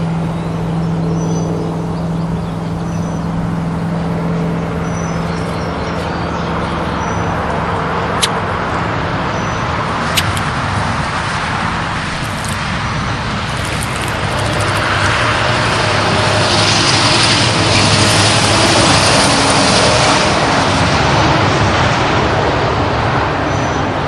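Road traffic noise. A vehicle's engine drones with a steady low note at first, then a louder vehicle passes with a rushing swell that peaks past the middle and eases off near the end.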